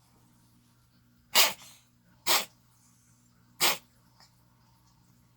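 A cat coughing: three short, sharp hacks, a second or so apart.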